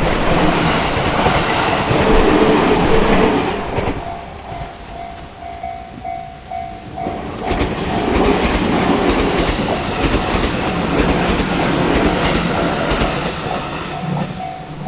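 Trains passing over a level crossing, with loud wheel and rail clatter that eases about four seconds in and builds again about eight seconds in. Between the passes the crossing's warning bell rings in an even, repeating ding.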